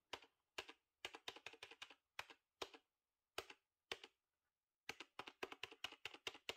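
Keys of a Logitech MK235 wireless keyboard pressed by hand to let their noise be heard. Single keystrokes come spaced apart at first, then after a pause of about a second a quick run of keystrokes follows. They are far from silent but not really loud.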